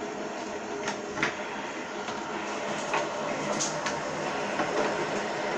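Fidget spinners spinning on their bearings: a steady whirring rattle, with a few sharp clicks as the spinners knock together.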